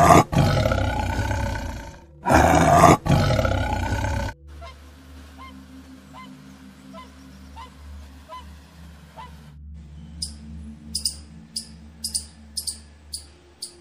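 A tiger roaring twice, each roar loud and about two seconds long. It then goes much quieter, and from about ten seconds in a quick run of short, high-pitched chirps.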